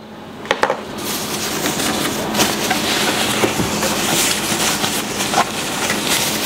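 Thin plastic wrapping crinkling and rustling as it is handled and pulled off a boxed bench multimeter, starting about half a second in and going on without a break, with a few sharper crackles.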